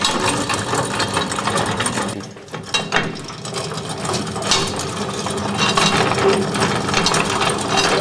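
Gearing of antique hand-operated washing machines clattering and ratcheting as they are worked by hand: first a rack-and-pinion drive with a curved gear, then a lever-driven machine with a flywheel and a wooden dolly agitator. The sound drops briefly about two seconds in.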